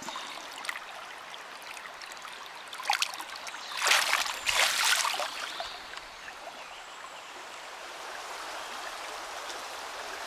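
River water running over a shallow bed, with splashing in the water about three to five seconds in as a small trout is released by hand.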